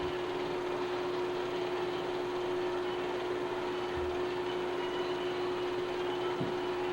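Steady hiss with a constant mid-pitched hum and no other sound: the noise floor of a silent 8mm film transfer.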